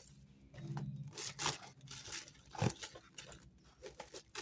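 Plastic bag and cardboard box rustling and crinkling in short scattered crackles as a metal glove dispenser is worked out of its packaging.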